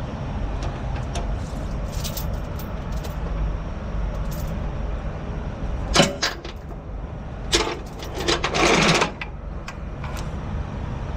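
Heavy diesel truck engine idling with a steady low rumble, while metal parts and tools clank. There is a sharp knock about six seconds in, a clatter soon after, and then about a second of rushing noise.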